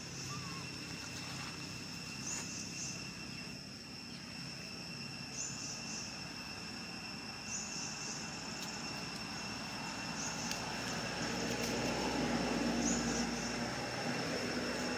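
Outdoor ambience of insects calling: two steady high-pitched tones with short chirps about every two seconds. A low hum grows louder from about ten seconds in.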